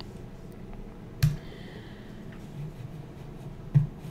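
Two sharp clicks from computer input, about two and a half seconds apart, over a faint steady room hum, as a file is saved.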